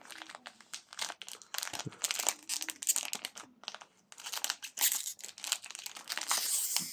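Foil wrapper of a Pokémon card booster pack crinkling and crackling as it is handled and torn open, in a rapid irregular run of crackles.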